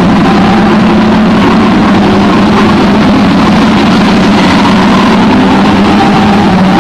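Saloon stock car engines running hard together as a pack of cars laps the bend, a loud, continuous engine noise.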